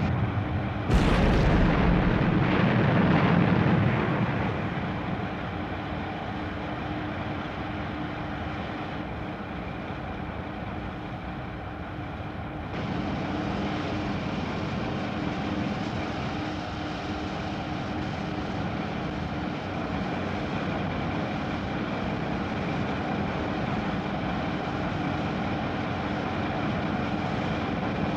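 An explosion about a second in, after the blasting order "Fire 2 and 3": charges blasting rock, the rumble dying away over a few seconds. It is followed by a steady engine drone of heavy road-building machinery, which gets louder about thirteen seconds in.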